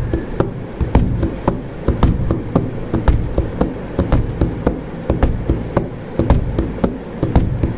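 Typing on a keyboard: quick, irregular key clicks, several a second.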